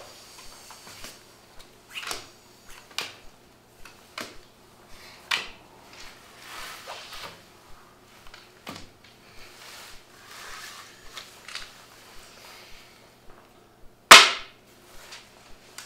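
Playing cards being dealt and tossed onto a wooden table, a scatter of light slaps and clicks, with one much louder sharp crack near the end.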